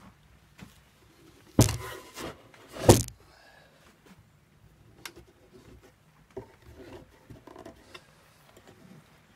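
Cordless drill-driver run in two short bursts, driving screws into plywood, followed by a few light knocks as the pieces are handled.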